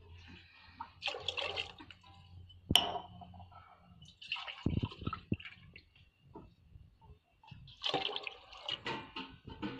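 Water poured from a steel glass into a pot of chickpeas in masala gravy, in splashing pours, with a sharp clink a few seconds in.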